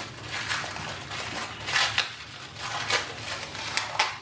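Wax casing being peeled and cracked off a small round of Gouda cheese by hand: a series of short crackling tears, the loudest about halfway through and near the end.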